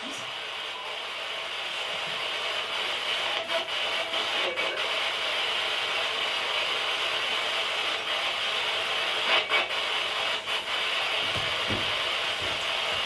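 Steady static hiss, like an untuned radio, with a few faint clicks.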